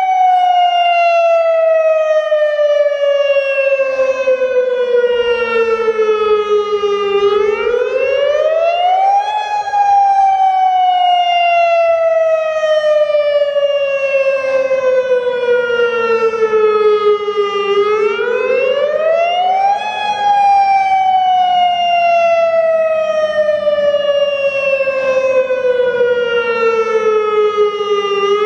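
Federal Signal Modulator 6048 outdoor warning siren sounding its wavering attack signal. The wail climbs quickly over about two seconds and slides slowly back down over about eight, twice over, and climbs again at the very end.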